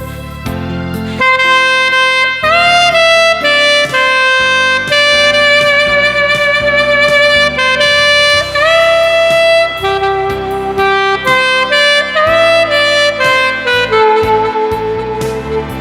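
Alto saxophone playing a slow, lyrical melody over a backing track, with long held notes, several of them scooped up into pitch.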